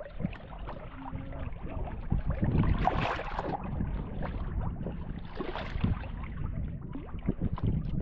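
Wind buffeting the microphone in uneven gusts, with many small knocks and water sounds throughout, swelling twice.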